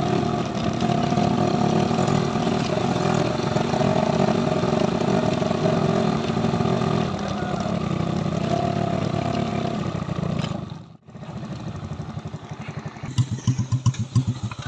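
Small motorcycle engine running steadily while being ridden. It cuts out suddenly about 11 seconds in, and near the end a second motorcycle passes close by with a run of loud engine pulses.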